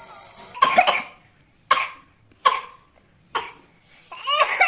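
A young child coughing repeatedly, about once a second: a quick double cough first, then single coughs, and a longer, more voiced one near the end. It is a cold-and-cough cough.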